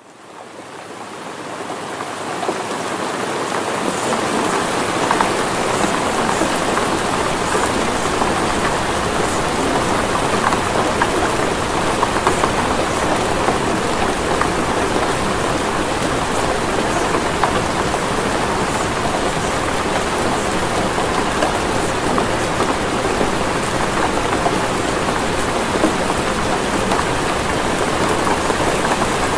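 Steady, heavy rainfall, a dense even patter of drops, fading in over the first couple of seconds and then holding steady.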